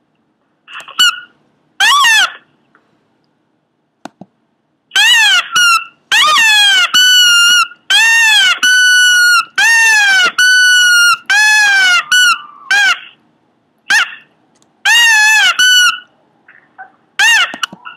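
Pomeranian dog making a string of short, high-pitched squeaky cries, each rising and falling in pitch. There is a pause of a couple of seconds before the calls come thick and fast from about five seconds in.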